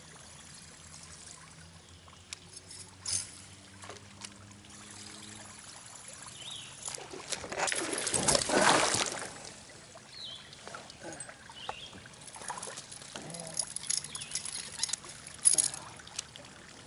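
Water splashing as a hooked spotted bass is reeled in on a buzzbait and fights at the surface. The loudest splashing swells and fades about eight seconds in, with smaller splashes and clicks after it.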